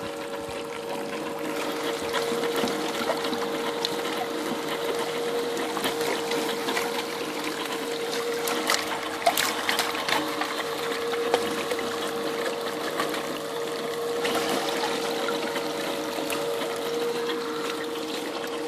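Water trickling and splashing through a Desert Fox spiral gold wheel and its tub, over the steady hum of the wheel's small electric motor and pump. There are a few sharp clicks about nine and eleven seconds in.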